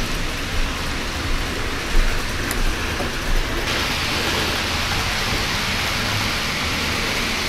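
Model train running on the layout track: a steady hissing rumble of wheels and motor, with a few light clicks. The hiss grows louder about three and a half seconds in as the Union Pacific steam locomotive model comes close.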